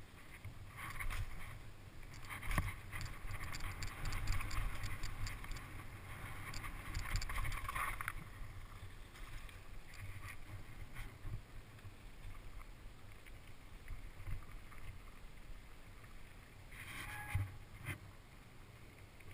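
Mountain bike descending a dirt trail, heard from a camera mounted on the bike or rider: low wind rumble on the microphone, with clattering and rattling of the bike over bumps. About eight seconds in the rattling gives way to quieter rolling on gravel, with only occasional knocks.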